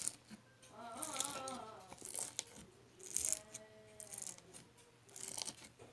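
Small objects being handled: a series of short clicks, rattles and rustles, with a brief soft pitched sound, like a faint voice, about a second in and again around the middle.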